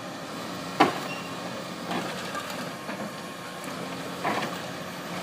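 Excavator engine running steadily, with one sharp loud clank a little under a second in and a few fainter knocks later as it breaks at a bridge.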